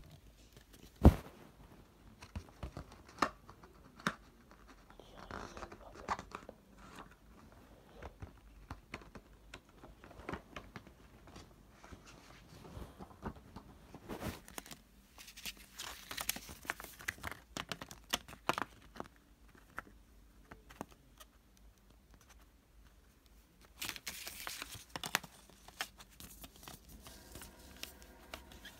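Hands handling a plastic CD jewel case and its clear plastic wrapping: scattered sharp clicks and taps of the case, with two longer stretches of crinkling, tearing plastic.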